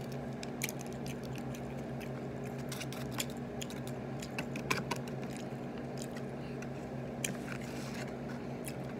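Close-up eating sounds: chewing chicken nuggets, with scattered small clicks and crinkles as packaging is handled, over a steady low hum.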